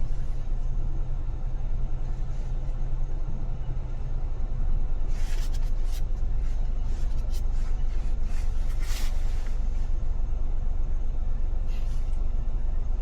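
Steady low rumble of a car driving in dense city traffic, with several brief hissing bursts in the middle and again near the end.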